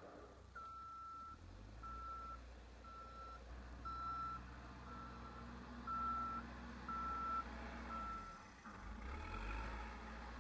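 Backhoe loader reversing: its backup alarm beeps about once a second, eight times, over the steady low running of its diesel engine. The beeping stops near the end and the engine gets louder.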